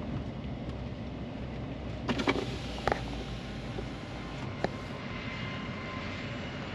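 Steady low vehicle rumble heard from inside a pickup truck cab. A few sharp clicks and knocks come between about two and five seconds in, the loudest cluster at around two seconds.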